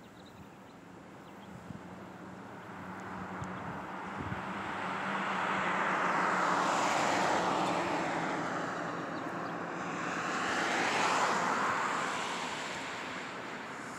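An airplane flying over: its rushing engine noise builds over several seconds to a peak around the middle, dips, swells again a few seconds later, then eases off.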